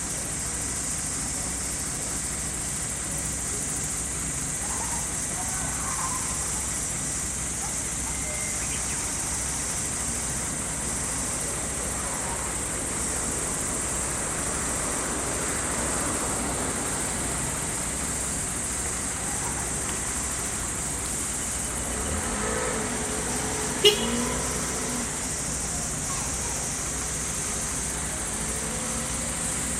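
Steady high-pitched drone of summer insects over a low, steady engine rumble, with a single sharp knock about three-quarters of the way through.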